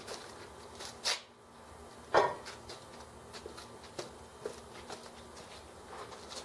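A metal-framed swivel patio chair set down on concrete: a sharp click about a second in, then one loud knock about two seconds in, with light clicks and scuffs after.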